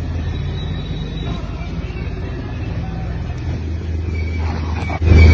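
A steady low rumble, then a sudden, much louder burst of noise near the end.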